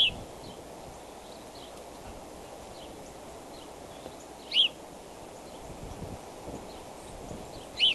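Bald eagle on its nest giving three short, high chirps a few seconds apart, with fainter chirps in between over a steady low hiss.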